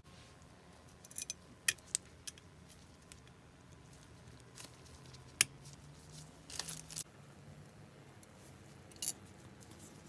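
Light metallic clicks and clinks from small steel bolts, a small wrench and the smoke stack's base flange being handled and fitted on a model steam locomotive. A handful of sharp single ticks, the loudest about five seconds in, and a brief rattling cluster about a second and a half later.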